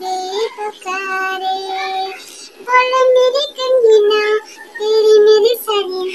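A woman singing unaccompanied in a high voice, holding long notes with short breaks between phrases.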